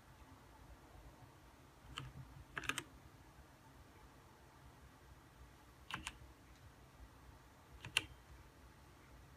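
Keystrokes on a Gamepower Warlock Compact mechanical keyboard with red switches: a few separate key clacks coming in small groups a couple of seconds apart. They are Fn-key combinations that cycle the keyboard's lighting modes.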